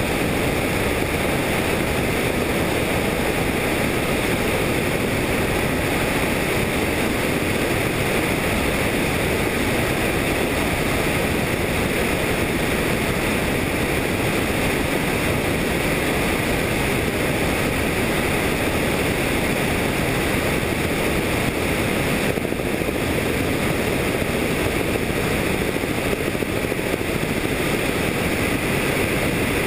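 Helicopter in flight: a steady, even rush of engine and rotor noise mixed with wind.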